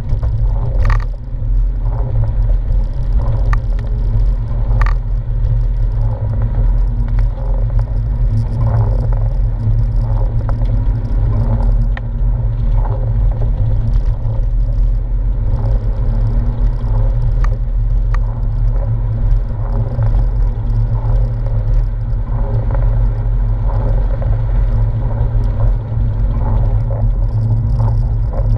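Porsche 997's flat-six engine and tyre rumble on a wet road, heard from inside the cabin as a steady low drone at an even cruising pace, with a few light clicks scattered through it.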